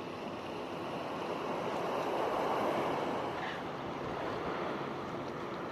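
Steady wash of shallow sea water lapping at the shore, with some wind on the microphone, swelling slightly in the middle.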